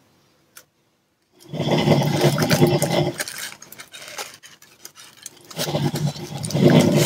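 A person snoring, two long rough snores about four seconds apart, the first after a short silence.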